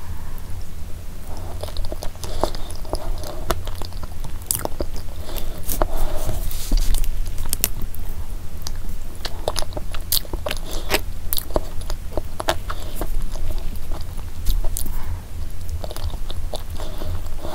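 Close-miked chewing of a spoonful of pistachio cream dessert with cookie and pistachio topping: wet mouth sounds with many short, sharp clicks and smacks.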